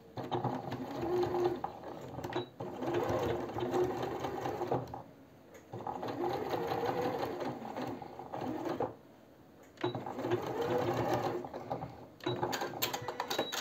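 Electric domestic sewing machine stitching in about five short runs of two to three seconds each, with brief stops between, its speed rising and falling as the corners of a collar are sewn.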